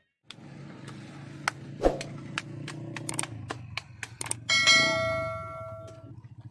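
Subscribe-button animation sound effect: a run of sharp clicks, then a bright bell-like notification ding about four and a half seconds in that rings and fades over about a second and a half, over a steady low hum.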